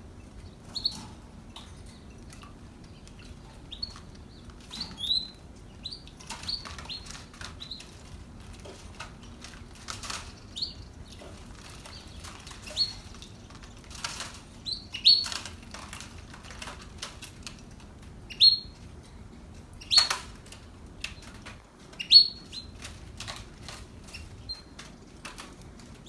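A canary bathing in a water dish, splashing and fluttering its wings in short bouts, the loudest a little over two-thirds of the way through. Short, high cheeps from the canaries come again and again throughout.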